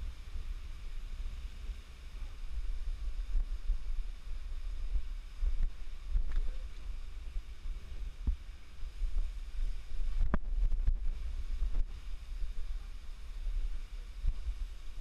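Uneven, gusting low rumble of wind on the camera microphone, with a few scattered knocks from walking through thick undergrowth, the loudest about ten seconds in.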